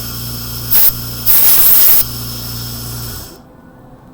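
Two bursts of hissing air, a short one and then a longer, louder one, over a steady electrical hum. The hum cuts out about three seconds in.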